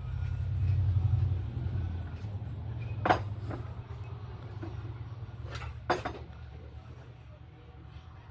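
A few sharp metal clinks from work on a car's steering rack: three short knocks, about three seconds in and twice close together near six seconds, over a low steady rumble.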